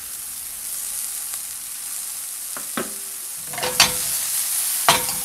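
Sliced mushrooms frying in a skillet with a steady sizzle, broken by a few short knocks and scrapes as the pan is tossed, the loudest a little under four seconds in and near the end.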